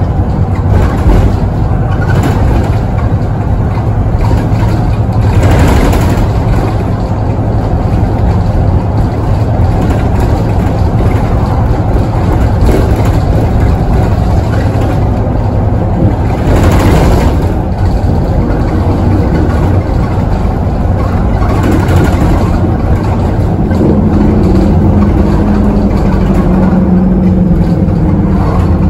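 Heavy diesel engine of a VDL SB200 single-deck bus running under way, heard from inside the passenger cabin as a loud, steady low rumble with road noise. Brief swells of noise come twice, and near the end an engine tone rises as the bus pulls harder.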